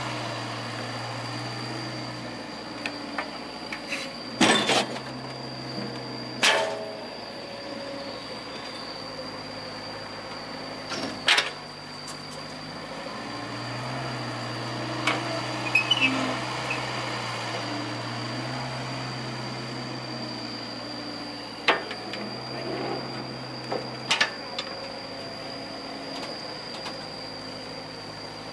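Kobelco mini excavator's engine running steadily, its pitch rising and dropping every few seconds as the arm and bucket work, with a thin steady high tone over it. Sharp knocks stand out about six times, as the bucket scoops and dumps sand into the truck bed.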